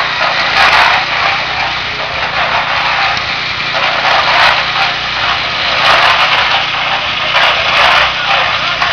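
A small engine running steadily on a building site, its loudness swelling and easing irregularly.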